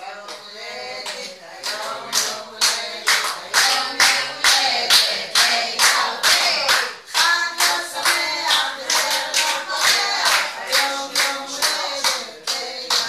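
A group of people singing together and clapping along in a steady beat, about two to three claps a second.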